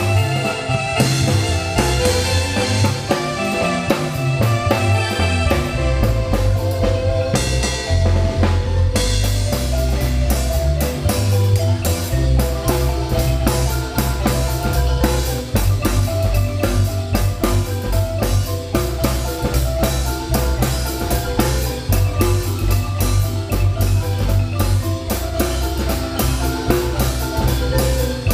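Marimba ensemble playing dance music: a marimba melody over a drum kit with a steady beat and a low bass line that moves from note to note.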